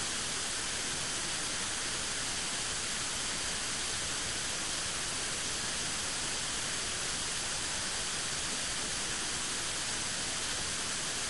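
Steady, even hiss at a constant level, strongest in the upper range, with no distinct events.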